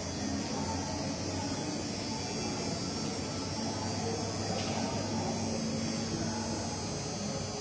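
Steady background hum and hiss of a large indoor hall, with a low electrical-sounding hum and no distinct event.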